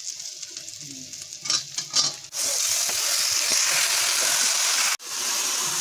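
Sliced onions and green chillies frying in oil in a black iron wok, stirred with a spatula that scrapes the pan a few times. After about two seconds comes a louder, steady sizzle as pieces of meat fry in the wok.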